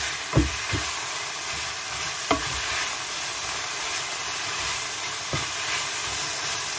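Sliced chicken breast sizzling in oil and sauce in a frying pan as it is stir-fried with a wooden spatula: a steady hiss, with a few short knocks of the spatula against the pan.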